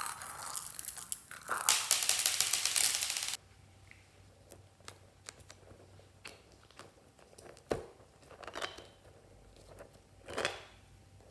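Dense crinkling and tearing noise as hands squeeze and handle a squishy foam toy, cutting off abruptly a little over three seconds in. Then only a few light taps and soft rustles as a rubbery puffer toy is handled.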